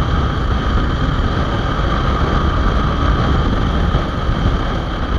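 Honda Hornet 2.0 motorcycle's single-cylinder engine running at road speed, mixed with heavy wind rush on the microphone.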